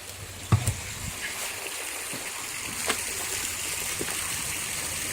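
Water lapping and splashing, with a few sharp knocks, the loudest about half a second in.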